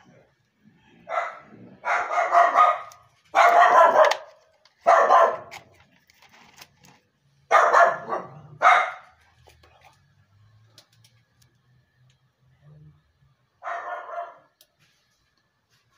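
A dog barking loudly: a run of barks over the first nine seconds, then a single bark near the end.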